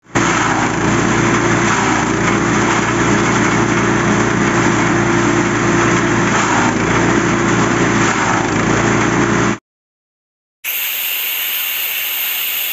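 Small petrol engine driving a forage chopper (chaff cutter) at steady speed while it chops cassava leaves and stems, a continuous loud machine noise that stops abruptly. After about a second of silence, a steady high hissing sound effect follows.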